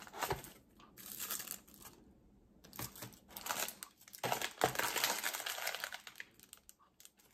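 Clear plastic bag crinkling as it is handled and opened to get out an action-camera mount bracket, in two stretches with a short pause about two seconds in.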